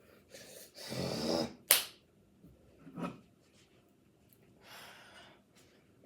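A short breathy gust of noise, like a puff of air, then a sharp click just after it. A brief soft noise follows, then a faint hiss.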